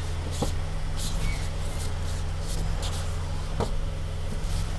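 Steering of a 2023 Hyundai Santa Fe being turned to full lock, with a few faint clicks over a steady low hum. The clicks at the stops are the steering-column knock being checked after shimming the electric power steering shaft bushings with rubber.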